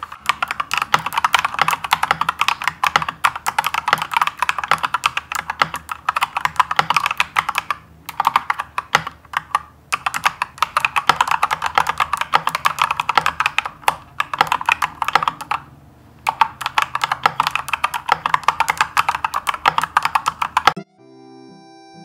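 Fast, continuous typing on an Akko full-size mechanical keyboard, a dense run of key clicks that pauses briefly a few times and stops abruptly near the end. Faint background music runs underneath and is left on its own once the typing stops.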